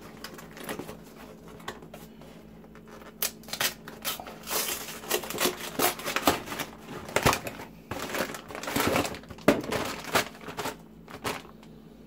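Cardboard carton being torn open by hand, then the plastic bag inside crinkling as it is pulled out and handled: an irregular run of rips, crackles and rustles, busiest in the middle.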